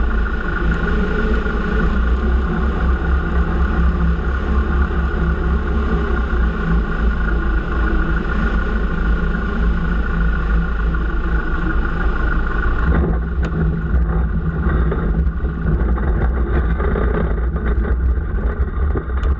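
Auster J4 light aircraft's four-cylinder Blackburn Cirrus Minor engine and propeller running steadily, with the rush of wind over a wing-strut camera, during a low approach and landing on a grass strip. About thirteen seconds in the high rushing hiss falls away while the engine keeps running.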